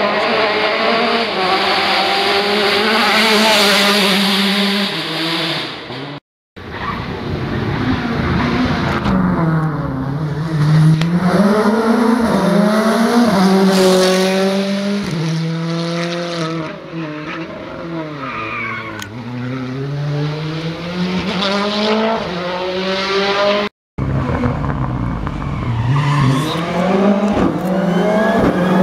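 R5 rally cars with turbocharged 1.6-litre four-cylinder engines, three in turn, passing at full attack on closed rally stages. Their engine notes rise under acceleration and dip at each gear change and braking point. The sound breaks off abruptly twice, about six seconds in and near the end, where one car's pass cuts to the next.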